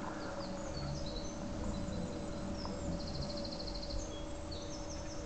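Small songbirds singing: a string of short high chirps and whistles, with a rapid trill about three seconds in. Underneath runs a steady low hum and a low rumble.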